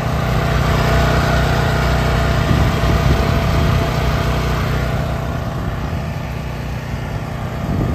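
Champion 9000-watt dual-fuel portable generator's single-cylinder engine running at a steady speed.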